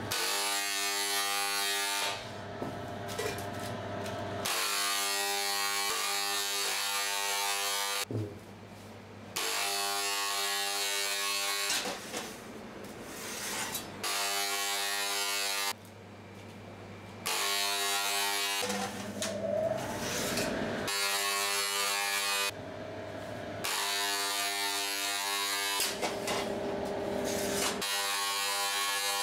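Handheld electric spray gun misting egg wash onto unbaked viennoiserie before baking. Its motor buzzes with a hiss of spray, switched on and off in about a dozen bursts of one to four seconds each.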